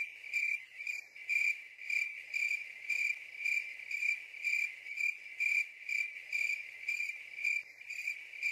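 Cricket chirping steadily: a single high trill that pulses about twice a second.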